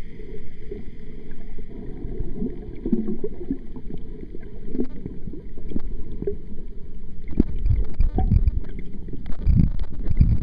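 Muffled underwater water noise picked up through a camera's waterproof housing: a low rumble and swishing with scattered clicks, getting louder with heavier low thumps after about seven seconds.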